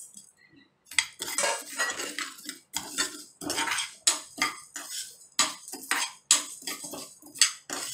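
A steel spatula scraping and stirring dry lentils, rice and fenugreek seeds around a stainless steel pan as they dry-roast, in quick strokes of about two to three a second that start about a second in.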